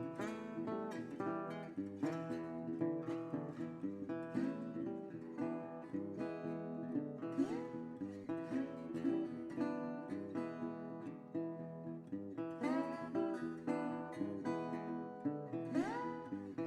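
Background music: acoustic guitar playing plucked notes, with a few notes sliding up in pitch.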